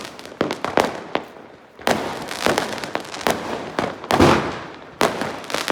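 Firecrackers going off: an irregular series of sharp bangs and pops, each trailing a crackling hiss, with the loudest bang a little past four seconds in.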